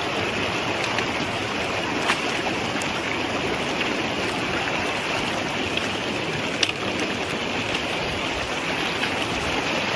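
Rushing mountain stream water, a steady rush around the wader, with a couple of sharp clicks about two and six and a half seconds in.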